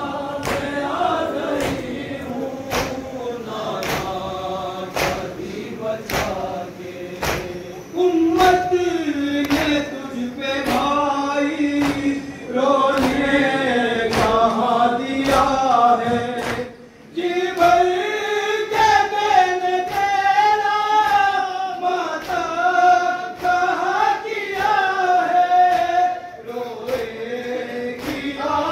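Noha, a Shia lament, chanted by a group of voices, over a steady beat of sharp slaps typical of matam (chest-beating by the mourners). The singing drops out briefly about seventeen seconds in while the beat carries on.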